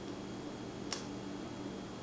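A single sharp click about a second in, from a lock pick working the pins inside a pin-tumbler lock, over a steady low hum.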